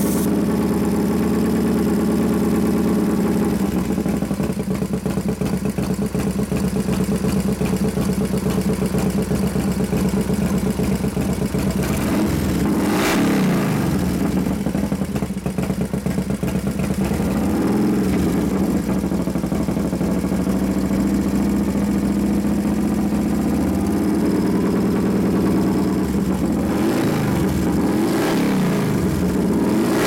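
Newly built 89 ci Harley-Davidson Evolution V-twin stroker in a 1993 FXR idling steadily, with the throttle blipped so the revs rise and fall a little before halfway, again a few seconds later, and twice near the end.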